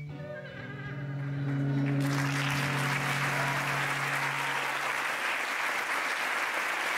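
Audience applauding, swelling in about two seconds in as a low final note of guitar music is held and fades away.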